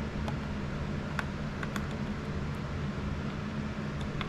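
A few faint, light metallic clicks from a small Allen key turning the buffer's retaining bolts, over a steady low hum that is louder than the clicks.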